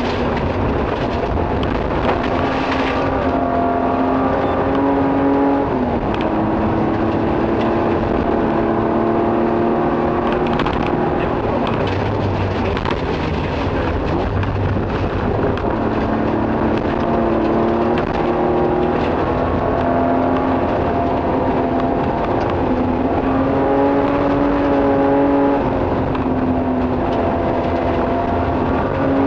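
Nissan Skyline rally car's engine heard from inside the cabin, running hard, its note holding and then dropping in steps as it changes gear, over a constant rush of tyre and gravel noise.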